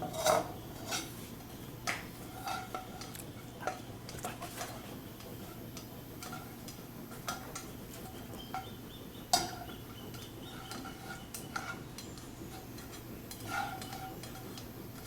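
A cooking utensil stirring chopped vegetables in a frying pan, with irregular scrapes and clinks against the pan, the sharpest knock about nine seconds in. The vegetables are being pre-cooked as a sofrito over very low heat.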